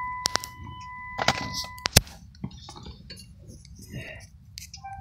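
A steady, high electronic beep tone that stops about two seconds in, with several sharp clicks and knocks, the loudest just as the tone ends; the knocks fit a phone being handled and turned inside a car.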